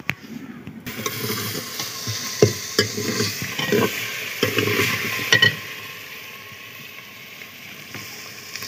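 Saag sizzling as it fries in a metal pot over a straw fire. From about two to five and a half seconds a metal ladle scrapes and knocks against the pot as it is stirred. After that, a steadier, quieter sizzle.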